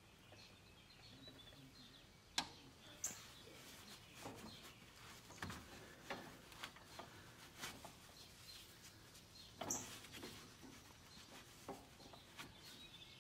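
Faint rustling and scraping of a gloved hand clearing packed grass clippings from around a lawn tractor's brake stop, with scattered soft clicks and a sharper click about two and a half seconds in.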